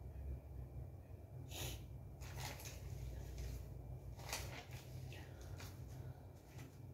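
A person sniffing sharply through the nose, five or six short sniffs, over a low steady hum.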